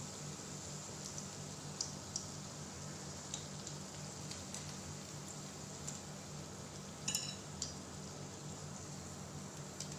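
Luncheon meat slices frying in shallow oil: a steady sizzle with scattered small pops. About seven seconds in, a metal fork clinks against the pan a few times while the slices are turned.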